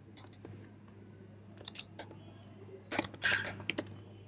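Typing on a computer keyboard: irregular key clicks, with a louder flurry of keystrokes about three seconds in.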